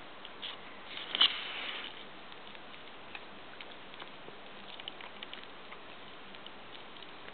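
Pomeranian licking and gnawing a steak bone: scattered small wet clicks and smacks, with a louder burst of chewing about a second in.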